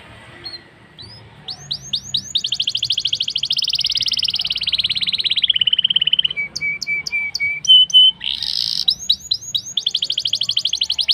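Blackthroat (black-throated canary) singing: long, fast rolling trills of rapid down-slurred notes, broken about halfway through by a short run of clear, evenly repeated whistled notes, then another fast trill near the end.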